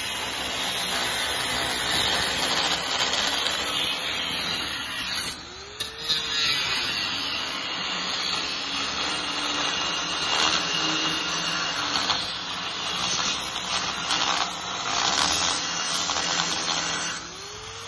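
Corded angle grinder grinding down welds on a steel beam plate: a steady rasp of the disc against the steel over the motor's whine. It lifts off briefly about five seconds in and again near the end.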